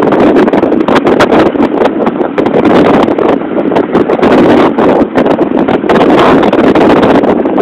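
Heavy wind buffeting the microphone on a moving Motorino XPD electric scooter: a loud, uneven rushing with no engine note in it.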